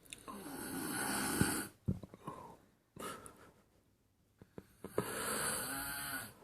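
A person snoring: two long, rattling snores about five seconds apart, with quieter breathing between them.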